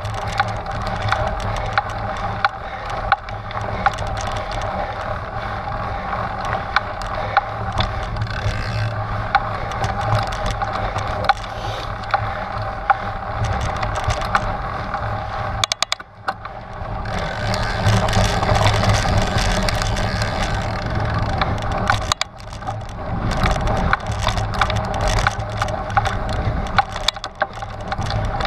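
Trek Stache 9 mountain bike on a rough trail: its wide 29-plus tyres crunch over dirt and rock while the bike rattles and clicks steadily. The noise dips briefly about halfway through, then picks up louder again.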